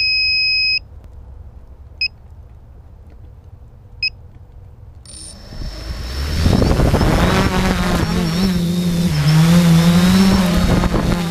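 Electronic beeps, one long and then two short ones about two seconds apart, then a HobbyKing SK450 quadcopter's electric motors and propellers spin up about five seconds in and it lifts off, running with a steady hum that wavers up and down in pitch.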